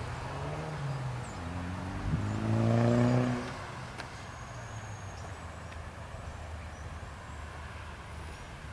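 A motor vehicle's engine passing by, swelling to its loudest about three seconds in and then fading into a steady low rumble.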